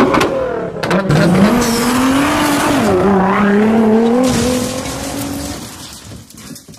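Sound effect of a car burnout: the engine is held at high revs, its pitch wavering, over hissing tyre-and-smoke noise. It fades away over the last couple of seconds.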